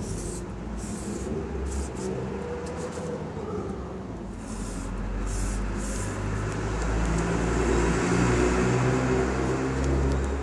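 A motor vehicle's engine running close by, its low hum shifting in pitch and growing louder over the last few seconds, with rustling as the phone is handled.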